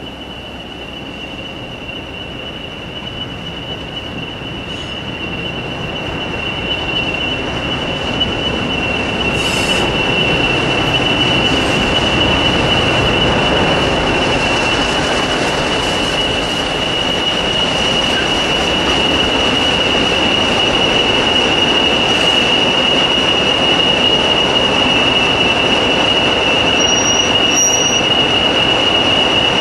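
English Electric Class 40 diesel locomotive running and passing close by, its engine rumble carrying the steady high turbocharger whistle these locomotives are known for. It grows louder over the first ten seconds as it approaches, then stays loud.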